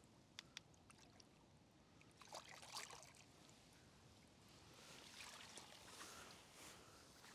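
Faint water splashing and trickling as a released carp swims off out of a landing net, with a couple of small splashes near the middle and again near the end and a few light clicks.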